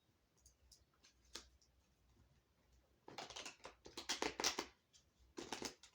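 Tarot cards being handled and shuffled. A few faint clicks come first; about three seconds in there is a quick run of papery flicks and rustles, and a shorter one near the end.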